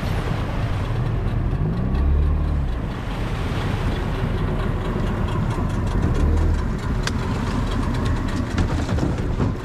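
An engine running steadily, with a low rumble throughout.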